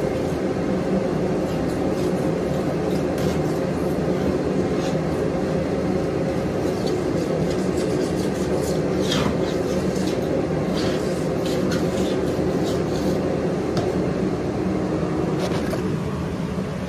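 A steady machine drone runs under light, irregular scraping clicks as a hand scraper works old peeling coating off the wall of a bathtub, with a brief squeak about nine seconds in.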